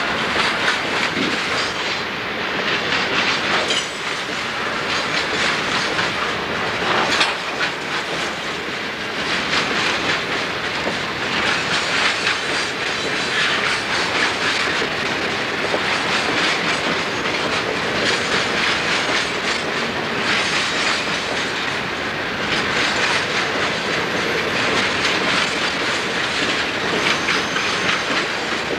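Coal hopper cars of a long Conrail coal train rolling past close by: a steady rumble with the clickety-clack of steel wheels over the rail joints.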